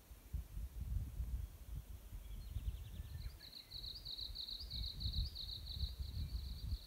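Wind buffeting the microphone in uneven low gusts. From about a third of the way in, a bird calls in a fast run of high, rapidly repeated notes that carries on to the end.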